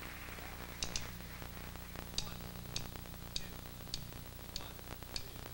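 Quiet musical passage: soft, sharp high ticks at an even pace, a little under two a second, over a low steady hum, a sparse percussion pulse.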